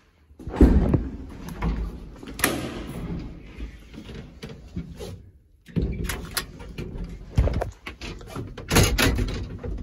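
Manual doors of an old ZUD passenger lift being opened and shut by hand: a series of heavy clunks, latch clicks and bangs, the loudest about half a second in and another cluster near the end.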